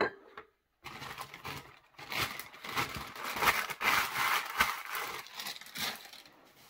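Packing wrap crinkling and rustling as a wrapped item is handled, with small scrapes and clicks. It starts about a second in and dies down near the end.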